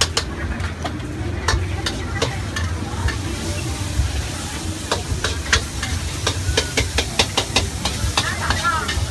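Metal spatula clanking and scraping against a wok during stir-frying, with the hiss of frying food underneath. The clanks come irregularly and grow thickest in the second half.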